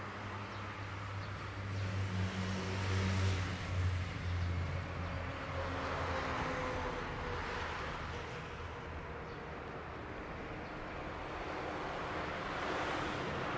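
Cars passing: a low engine hum with tyre noise that swells as one goes by about three seconds in, and another rises near the end.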